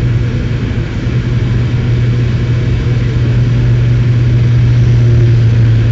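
Airliner engines at takeoff power heard from inside the cabin during liftoff and the initial climb: a loud, steady low drone over a wide hiss, growing slightly louder.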